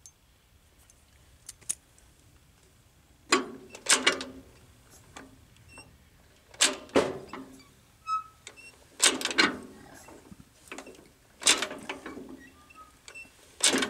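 Sharp metallic clacks and rattles from hand work on a Farmall B tractor engine, about half a dozen of them, some in quick pairs, a couple of seconds apart.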